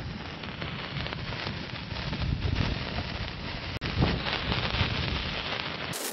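Hand-held sparkler fizzing and crackling close to the microphone, over a low wind rumble on the microphone. The sound drops out for an instant just before four seconds in, and changes abruptly just before the end.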